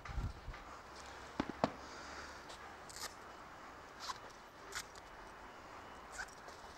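Handling noise from wet textile motorcycle gear as the helmet is pulled off and the jacket cuffs are undone: scattered small clicks and rustles, with two sharper clicks about a second and a half in.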